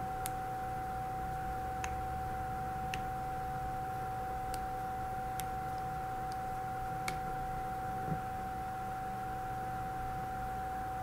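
Steady electrical hum and hiss with one constant whine, and a few faint, sharp clicks scattered at uneven intervals.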